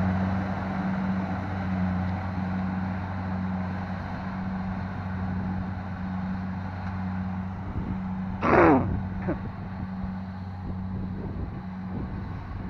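Diesel engine of a rice combine harvester running steadily while it cuts, a low hum with a fading rush as the machine drives away. About eight and a half seconds in, a brief loud sound rising in pitch stands out above it.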